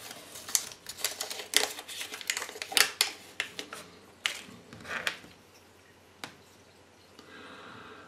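Hands handling a Kinder Surprise toy, its crinkly wrapper and paper leaflet: a quick string of sharp clicks and crinkles for about five seconds, then quieter.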